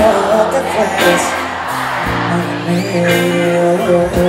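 Live pop ballad played by a band, sustained chords with a male lead voice singing over them.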